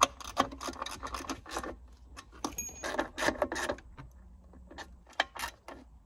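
Hands working wiring and plastic connectors under a car's centre console: an irregular run of clicks, rattles and rustles as harness plugs are handled and pushed home, with a quieter stretch near the end.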